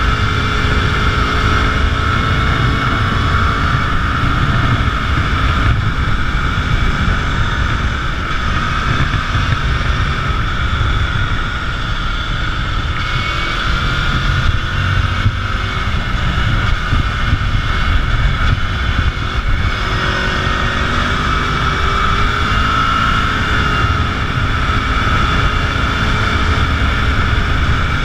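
Motorcycle engine running under way, its note rising and falling with the throttle through the bends, half buried in heavy wind rush and buffeting on the camera microphone.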